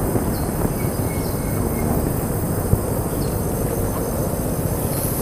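Outdoor field ambience: a low steady noise, with a faint high insect drone and a few short faint chirps.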